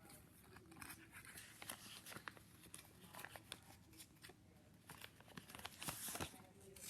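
Faint rustling and crinkling of a sheet of printer paper being folded and creased by hand, with a louder rustle near the end.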